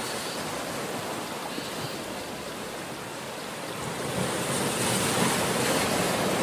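Sea waves washing in over a rocky shore, swelling louder about four seconds in as a wave breaks against the rocks.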